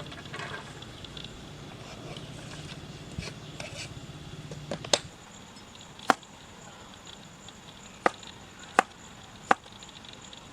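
A knife chopping on a cutting board: five sharp, separate strikes in the second half, after a low steady hum in the first half.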